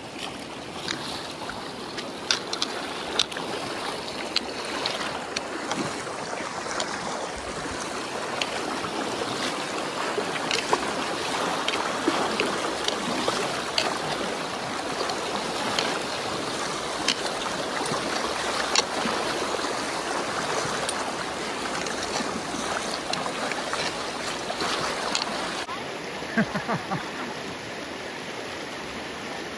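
Shallow, fast mountain river rushing over stones, with short sharp splashes of feet wading through it. About 26 s in, the rush becomes softer.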